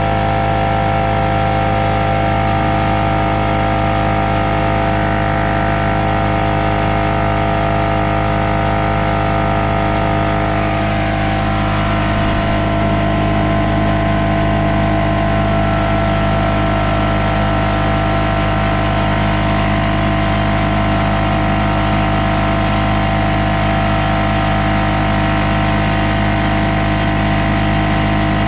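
Porter-Cable pancake air compressor's electric motor and piston pump running steadily, a constant hum with a slight change in tone about eleven seconds in. The compressor is not building any pressure.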